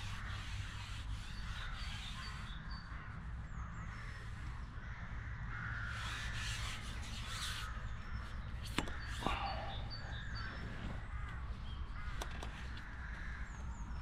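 Birds calling repeatedly outdoors, with a few sharp clicks about nine and twelve seconds in, over a steady low rumble.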